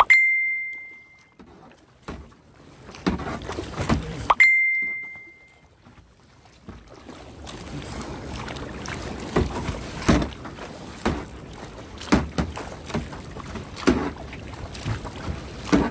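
Two bright ringing dings about four seconds apart, each fading over about a second. From about seven seconds in come irregular splashes and knocks of a kayak riding ocean waves, with some wind on the microphone.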